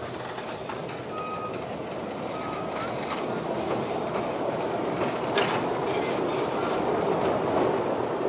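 Open wagons of a narrow-gauge field railway train rolling past on curved track, wheels rumbling on the rails and growing louder as the last wagon comes close. A few short high squeaks in the first three seconds and one sharp clank about five seconds in.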